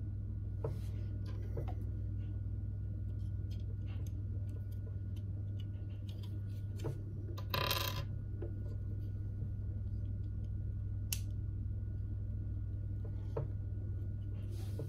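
Small plastic LEGO pieces clicking and tapping as they are handled and pressed onto a small model car, with a brief louder scrape about halfway through, over a steady low hum.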